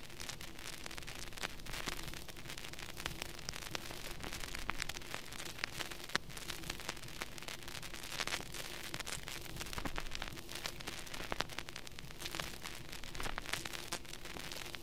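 Steady static hiss with frequent crackles and pops.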